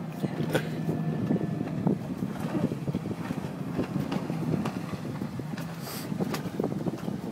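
Honda AquaTrax personal watercraft running at speed some way off, a steady engine drone. Short irregular knocks and slaps sound close by, with some wind on the microphone.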